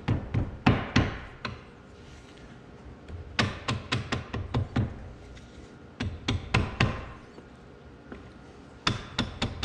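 Mallet blows tapping a geared shaft assembly down into the case of an Oliver 1855 over/under three-speed powershift transmission to seat it. The blows come in four quick bursts of several taps each, with short pauses between them.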